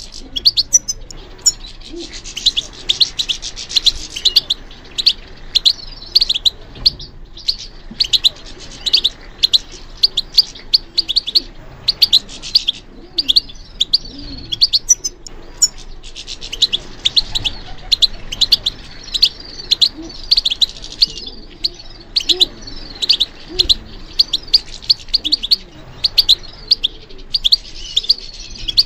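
European goldfinch singing: long runs of fast, twittering high notes and trills, broken by a few brief pauses.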